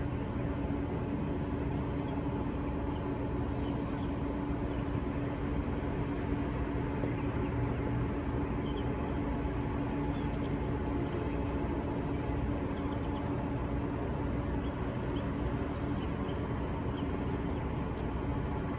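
A steady mechanical hum over a constant low rumble, holding level without a break.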